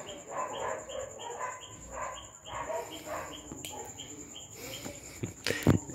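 Small dog growling in a run of short, repeated rumbles while chewing and tugging at the corded end of a hammock. Two or three sharp knocks sound near the end.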